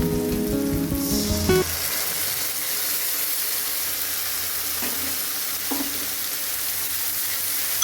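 Food frying in hot oil in a pan, a steady sizzle, with a couple of faint clinks partway through. Background music plays for the first second and a half, then stops.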